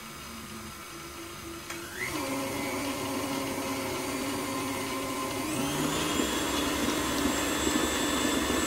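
Electric stand mixer beating cake batter of flour, ground almonds, milk and almond essence. Its motor speeds up with a rising whine about two seconds in and again about five and a half seconds in, then runs steadily at the higher speed.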